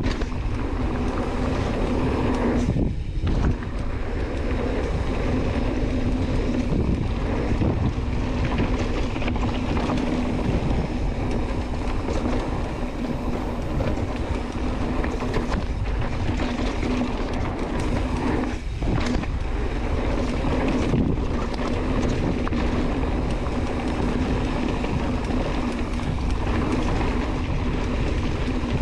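Mountain bike rolling fast downhill on a dirt trail: continuous tyre rumble and wind buffeting the microphone, with a steady hum and two brief dips in the noise.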